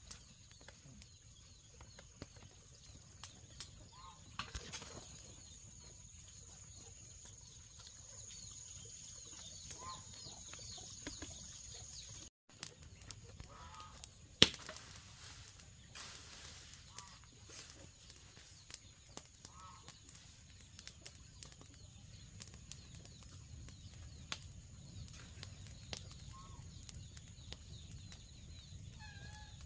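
Chickens clucking now and then, short calls a few seconds apart, over a steady high-pitched whine, with scattered light clicks and one sharp knock about halfway through.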